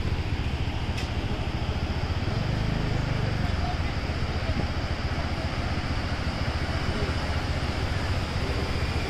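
Steady outdoor background noise: a low rumble under an even hiss, with faint voices in the distance.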